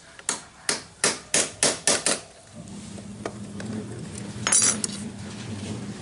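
About seven quick hammer blows on the steel casing of a washing-machine spin-dryer motor, knocking the drilled-out casing loose. Then a steady low hum with scraping and a bright metal clink about halfway through.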